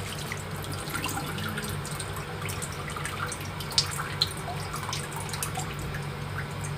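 Water dripping and trickling from rinsed noodles draining in a plastic colander into a basin, with two sharper clicks about four seconds in, over a steady low hum.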